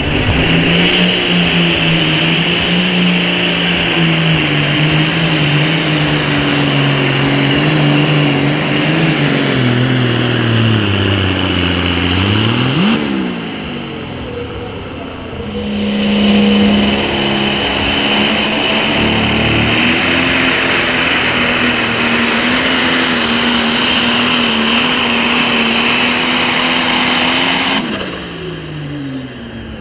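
Turbocharged diesel engines of Pro Stock pulling tractors at full power dragging the sled. The first engine's note sags steadily lower for about twelve seconds as the load builds, then drops away; a second run follows at a higher, steady pitch with a high whine over it, falling off near the end.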